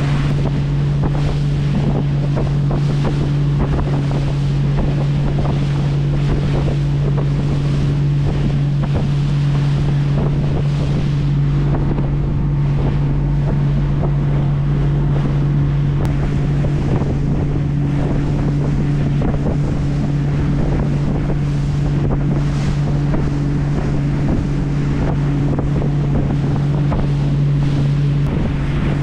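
A boat's engine running at a steady speed, a constant low hum, with wind on the microphone and the wash of water.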